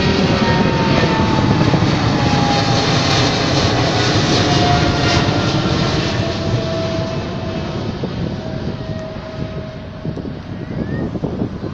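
Boeing 777-200ER's twin GE90 turbofan engines at climb power as the jet climbs out and moves away. Loud jet noise with a whining tone that slides slowly down in pitch, fading over the last few seconds.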